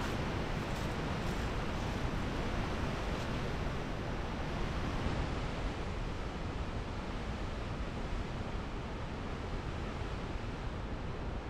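Steady rushing noise with a fluctuating low rumble.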